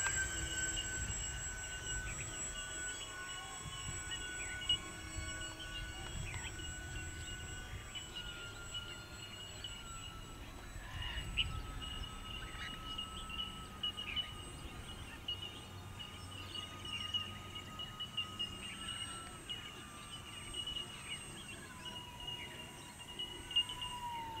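Twin-engine RC model floatplane's motors and propellers, a steady thin whine overhead. The pitch drops in a few small steps as the plane comes down low to land.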